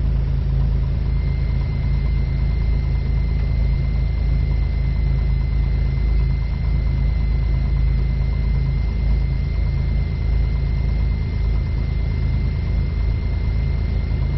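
Cessna 182 Skylane's piston engine and propeller running steadily at low taxi power, a constant low drone. A thin steady whine joins it about a second in.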